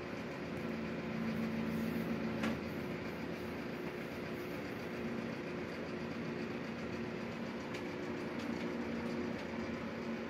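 Electric fan running with a steady hum that swells and fades slightly, and one faint click about two and a half seconds in.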